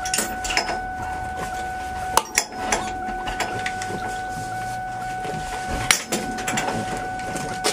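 Scattered clicks, clinks and a few sharp knocks of gear being handled inside a car cabin, over a steady thin tone and a low rumble.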